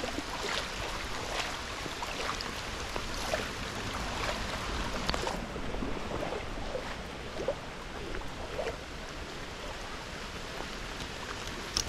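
Creek water running, with rain falling on the water: a steady wash of water noise dotted with small scattered drips and splashes.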